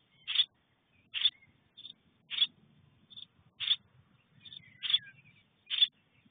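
A nestling in a wooden nest box giving short, harsh begging calls over and over, about one every half-second to second, some loud and some softer.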